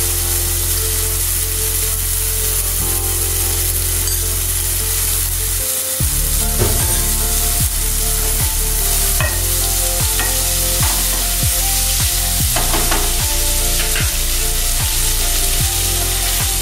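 Tomato pieces sizzling as they fry in hot mustard oil and ghee in a nonstick kadai, with a spatula stirring and scraping them about halfway through. A steady low hum runs underneath.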